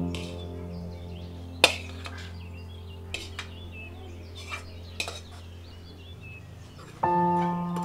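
Steel spoon clinking and scraping against a steel plate and pot as boiled rice is pushed off into the biryani pot, a few sharp clinks with the loudest about a second and a half in, over background music that swells with a new chord near the end.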